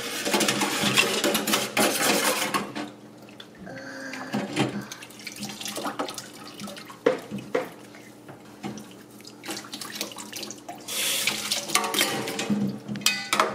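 Kitchen tap running into a stainless steel sink for the first couple of seconds and again near the end, with scattered clinks and knocks of utensils being washed and handled in between.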